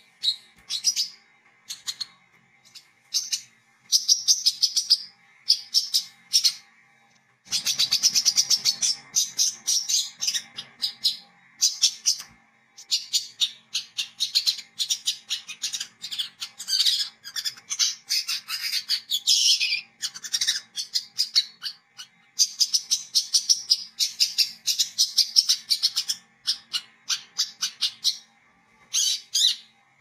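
Brown-throated sunbird (kolibri kelapa) singing a fast, chattering run of high chirps and twitters, in long bursts broken by a few short pauses.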